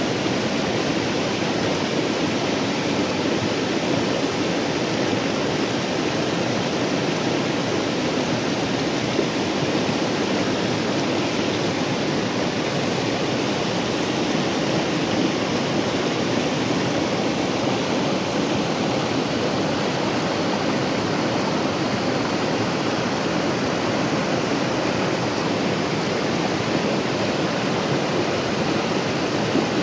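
River rapids: white water rushing over rocks in a steady, unbroken noise.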